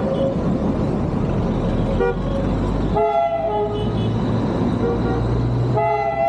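Darjeeling Himalayan Railway toy train's horn: a short toot, a longer one about three seconds in, and a long blast starting near the end, over the rumbling noise of the moving train.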